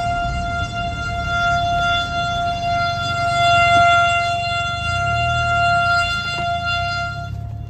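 Federal Signal STH-10 rotating outdoor warning siren sounding a steady single tone for a tornado warning. It swells louder about halfway through and dulls near the end as the rotating horn turns.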